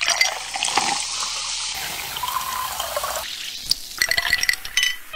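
Carbonated black tea soda poured from a bottle over ice into a glass, with a steady fizzing pour for about three seconds. Then ice clicks and clinks as the drink is stirred.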